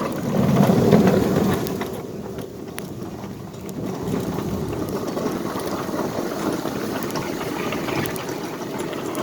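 Steady rumbling of a small mine railroad train rolling along its track, with a few faint clicks.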